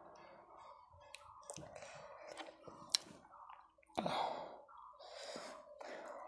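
Close-up eating sounds: quiet chewing, lip smacks and finger-licking while eating rice and fish curry by hand, with a breathy exhale about four seconds in.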